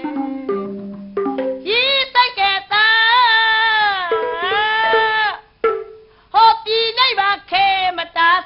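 A woman singing a Burmese song in a high, ornamented voice over instrumental accompaniment. After a short run of instrument notes she holds one long wavering note for about two and a half seconds, breaks off briefly, then sings several short phrases.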